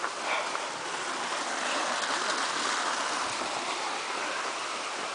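Water rushing steadily in a small stream, a little louder in the middle.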